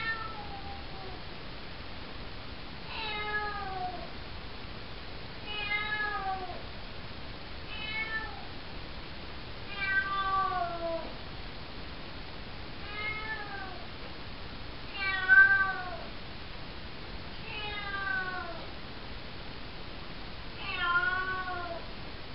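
A four-month-old calico kitten meowing repeatedly, about nine drawn-out meows one every two to three seconds, each sliding down in pitch, the kind of call the owners hear as "hello". The loudest meow comes about two thirds of the way through.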